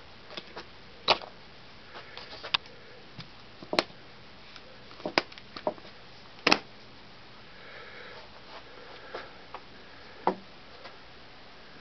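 Sharp clicks and snaps, seven or so spread out one at a time, from the metal latches of a tweed hardshell guitar case being unfastened, along with light handling of the case.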